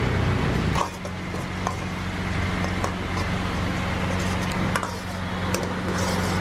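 Cooking at a street-food stall: a steady low mechanical hum with scattered short clinks and taps of utensils.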